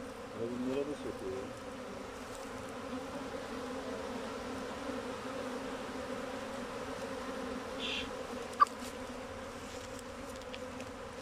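A honey bee swarm buzzing steadily as it is hived: many bees hum over the frames and fly around the open wooden hive box. A single sharp click comes about eight and a half seconds in.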